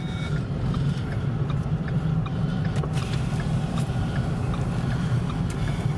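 Steady road and engine rumble inside a moving vehicle's cabin, with a few scattered faint ticks.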